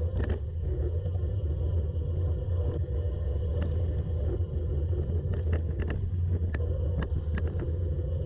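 Steady low rumble of a gravel bike on the move, wind and tyre noise on the rider's camera, with scattered sharp clicks and ticks that come more often in the second half.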